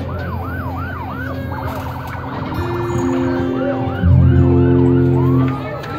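Emergency vehicle sirens sounding in repeated rising and falling wails, with a stretch of quick warbling yelps about two seconds in. From about four seconds in, a loud, low steady tone joins and breaks off near the end.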